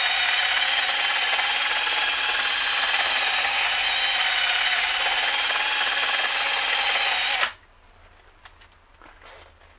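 Corded electric drill spinning a brush attachment against a car's wheel hub face, scrubbing the mounting surface clean: a steady whine with a rubbing scrape. It stops abruptly about seven and a half seconds in.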